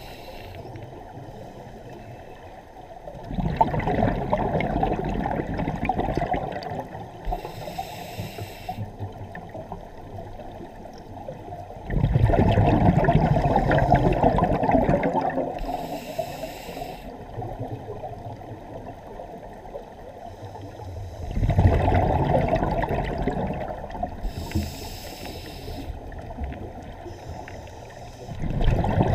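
Scuba diver breathing through a regulator, heard underwater. Each breath is a short hiss drawn through the demand valve, then a rush of exhaled bubbles lasting about three seconds. About three full breaths, one every eight to nine seconds.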